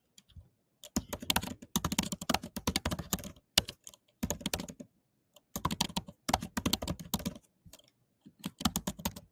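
Typing on a computer keyboard: rapid runs of key clicks in several bursts separated by short pauses.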